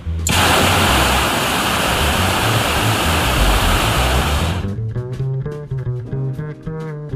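Hot-air balloon propane burner firing: a loud, even rushing hiss that starts just after a brief pause and stops suddenly about four and a half seconds in. It plays over background music with a bass line, and plucked guitar music carries on alone after it.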